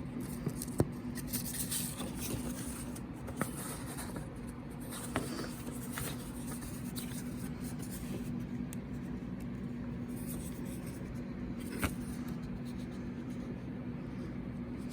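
Light scraping and a few sharp clicks of a smoke alarm being handled and turned over, over a steady low hum; the sharpest click comes near the end.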